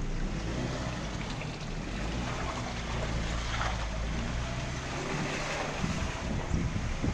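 Jeep Wrangler engine running steadily as it drives along a dirt trail, under a constant rushing noise of wind and nearby brush on a microphone mounted outside the vehicle.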